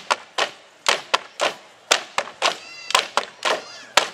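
Dance sticks knocking together in a stick dance: sharp, uneven clacks, about three a second.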